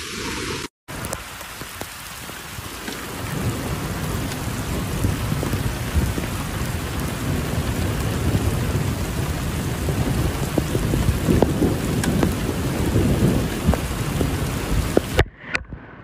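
Heavy rain pouring onto a paved road: a dense, steady hiss with scattered drop clicks and a deep rumble underneath that grows louder after a few seconds. The sound drops out briefly near the start and again near the end.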